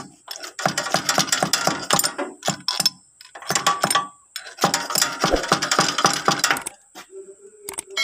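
Ratchet wrench clicking in quick runs as a bolt on a tractor's brake housing is turned, with short pauses between strokes; the clicking stops about a second before the end.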